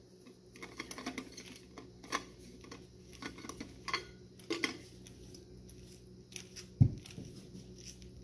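Small clicks and knocks of a travel mug being handled and sipped from, over a steady low hum, with a single dull thump about seven seconds in.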